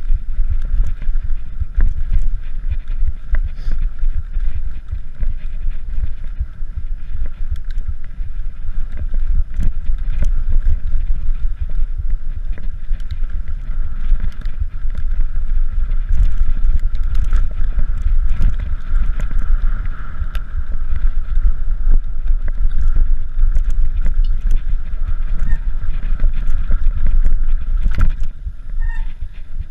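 Mountain bike ridden over slickrock and dirt singletrack: wind buffeting the microphone and tyres rolling on rock, with many sharp rattles and knocks from the bike.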